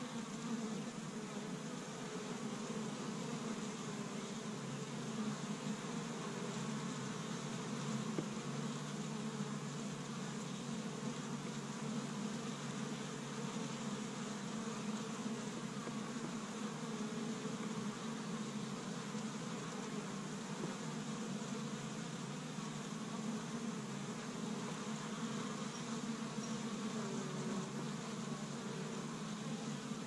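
Many honey bees buzzing at a hive entrance: a steady hum, now and then a single bee's buzz rising and falling as it flies close past.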